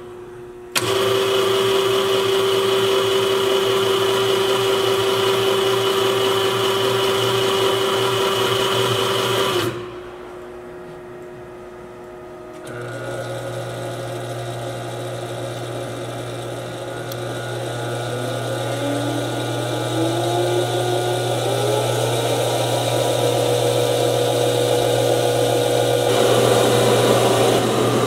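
Aronson 2000 lb welding positioner's electric gear-motor drives running under power: a steady whine that stops about ten seconds in, then after a short lull a second drive starts with a low hum and a whine that rises in pitch over several seconds and then holds, as the speed is turned up. The first run is the power tilt moving the table toward vertical, the second the power rotation of the faceplate.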